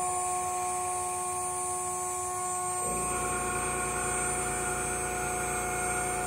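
CNC router spindle running with a steady high whine while its end mill cuts aluminium sheet. About three seconds in, a lower rumble and a denser hum join it.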